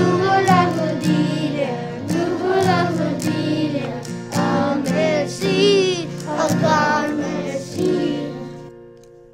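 A song sung in French by a group of voices over instrumental accompaniment, fading out near the end.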